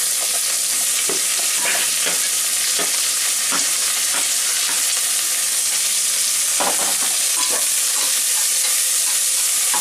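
Sliced onions sizzling steadily in hot ghee and oil with whole spices, stirred now and then with a ladle that scrapes against the pot.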